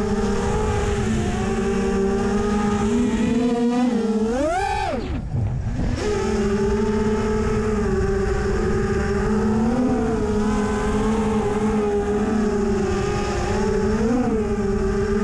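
The brushless motors and propellers of a freestyle FPV quadcopter whine steadily. About four and a half seconds in, the pitch surges up as the throttle is punched, then nearly cuts out for a moment before settling back to a steady whine. A second upward surge comes near the end.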